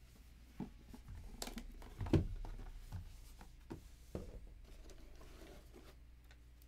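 A cardboard 2022 Topps Sterling Baseball hobby box being opened and handled: the lid is slid off and the two inner boxed packs are lifted out. There are soft scattered scrapes and taps, the strongest about two seconds in.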